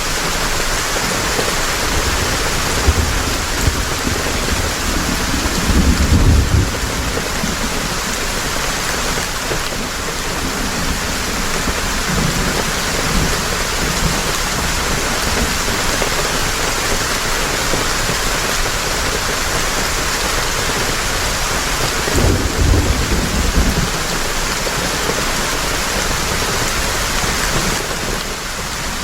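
Heavy rain falling steadily, with low rolls of thunder several times, the strongest about six seconds in and again a little past twenty seconds.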